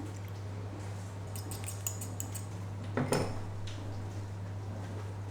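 Kitchenware clinking lightly, then a louder clatter about three seconds in, over a steady low hum.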